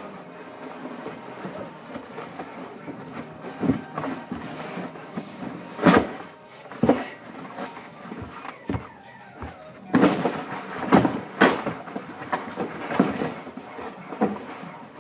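A cardboard box being smashed and crushed: irregular thuds and crunching cardboard, loudest about six seconds in and in a run of hits around ten to eleven seconds in.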